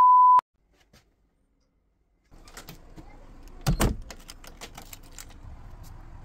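A steady test-card beep tone cuts off about half a second in. After a short silence, a key clicks and rattles in a metal door lock, with two heavy clunks close together about four seconds in as the lock is turned.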